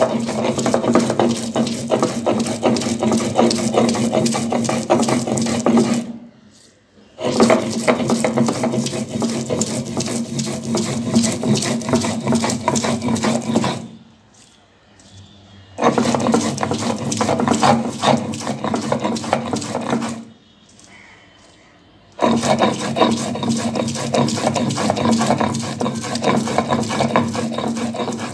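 Stone roller grinding garlic, onion and green chillies into a wet paste on a flat stone grinding slab (shil-nora): a rapid rasping scrape of stone on stone. It comes in four bouts, stopping briefly about six, fourteen and twenty seconds in.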